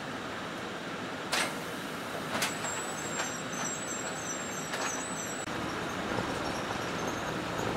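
Steady engine and road noise of a route bus heard from inside, with a few sharp clicks or knocks (three in the first five seconds) and a thin, high wavering whistle with short repeating chirps for about three seconds in the middle.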